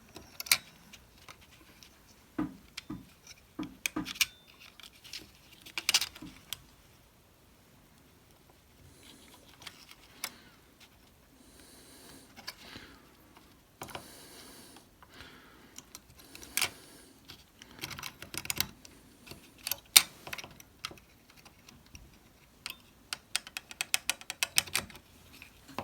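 Scattered light clicks and taps of small plastic and metal parts being handled and fitted together while a blend door servo actuator is reassembled, with a few short scraping or rustling sounds in between.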